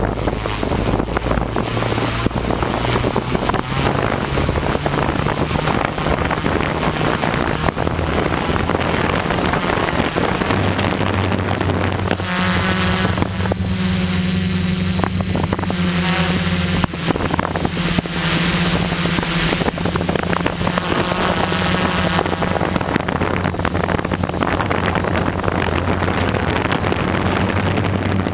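Quadcopter motors and propellers whirring steadily, heard from a camera on the craft. The hum steps up and down in pitch as the throttle changes, with wind rushing over the microphone.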